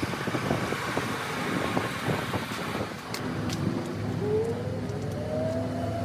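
Train at a platform: a low engine rumble with a few knocks. From about four seconds in, a rising whine begins as the train starts to pull away.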